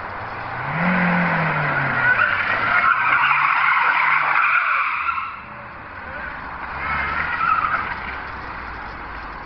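Car tyres squealing as a car drifts on pavement, with the engine revving up and down. Two spells of squeal: a long one from about half a second in to about five seconds, then a shorter one a couple of seconds later.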